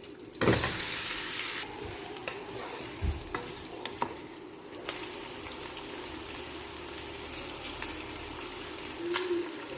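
Food dropped into a hot pan, sizzling loudly at once about half a second in, then frying steadily while being stirred, with a utensil clicking and knocking against the pan a few times.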